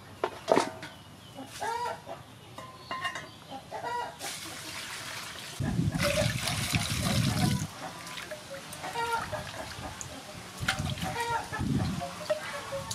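Chickens clucking on and off throughout. About half a second in there is a single thump as raw chicken wings are tipped into an aluminium basin. From about six seconds, water pours into the basin for about two seconds, the loudest sound here, and near the end hands slosh the wings in the water.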